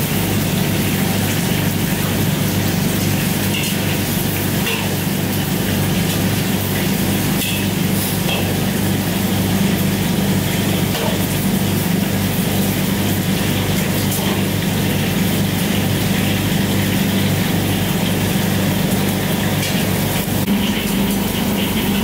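Chicken deep-frying in a wok of hot oil: a steady sizzling and bubbling over a low steady hum, with a few light clinks of the metal skimmer.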